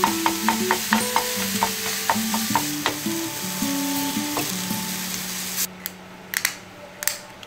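Ground beef and onion sizzling in a stainless steel frying pan while a wooden spoon stirs and breaks up the meat, over light background music. The sizzle stops about five and a half seconds in, and a few sharp clicks follow.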